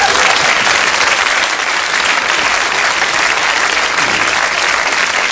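Live studio audience applauding steadily.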